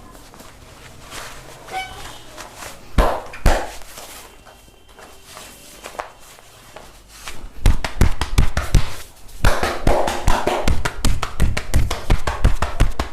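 Massage percussion: hands striking the body in a fast, even run of slaps, about six a second, starting a little past the middle. Earlier, two single louder slaps come about half a second apart, three seconds in.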